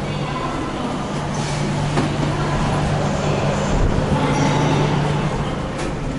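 Shinkansen train at a station platform: steady machinery noise with a low, even hum that stops about five seconds in.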